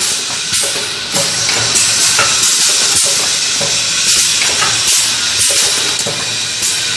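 Paper cup making machine running, a steady mechanical noise with short hisses repeating at an even pace, nearly twice a second.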